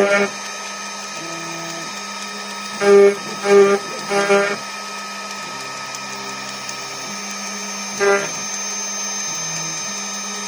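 CNC router spindle running steadily at 12,000 rpm with a 4 mm two-flute HSS end mill cutting aluminium, the cut ringing out loud in three short bursts about three to four and a half seconds in and once more near eight seconds. Lower tones switch pitch in steps between the cuts.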